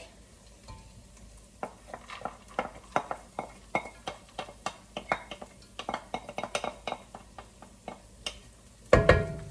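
A utensil scraping and tapping against a china plate as minced garlic is pushed off it into a cooking pot: a run of short, irregular clicks and scrapes, about two or three a second, with one louder clatter near the end.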